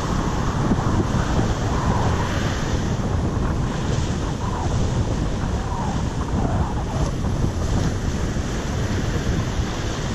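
Wind buffeting the camera's microphone in a steady low rumble over the continuous wash of surf breaking on the shore.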